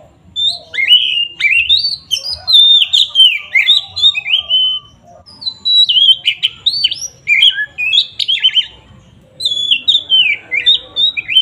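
Oriental magpie-robin singing in full, loud 'ngeplong' song: a fast run of varied whistled notes that slide up and down, broken by short pauses about five and nine seconds in.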